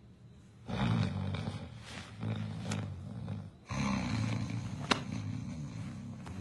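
Heavy snoring: two long, low, rattling snores, the first starting about a second in and the second just before four seconds in, with a sharp click about five seconds in.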